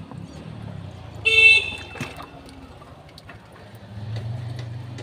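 A vehicle horn sounds once, briefly, about a second in; a low steady hum comes in near the end.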